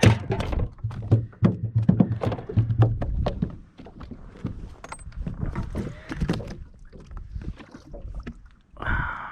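Knocks, clicks and thunks of handling gear and a fish aboard a fishing boat. A low rumble runs through the first three seconds, and there is a short hissy burst near the end.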